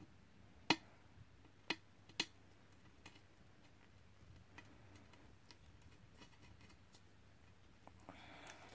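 Four sharp light clicks in the first three seconds, then near silence.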